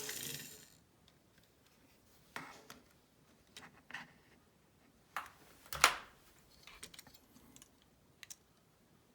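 Handling noises: a brief scratchy rustle, then scattered small clicks and scrapes of small plastic parts or packaging being handled. The sharpest click comes about six seconds in.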